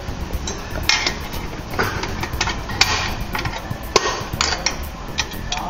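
Snap ring being worked into its groove above the center support inside a 4L80E transmission case: irregular sharp metallic clicks and taps, a dozen or so, as the ring is pressed down to seat flush.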